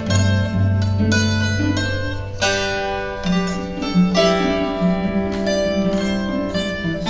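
Harp and cello playing together: plucked harp notes, about two a second, over long held cello notes.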